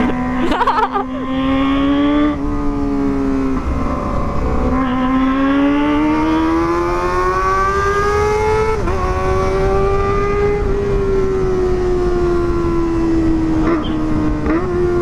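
Kawasaki ZX-25RR inline-four engine revving hard through a Pro Liner aftermarket exhaust while riding. Its high note climbs, breaks briefly at shifts about two and nine seconds in, then holds and slowly falls, with a quick blip of the throttle near the end.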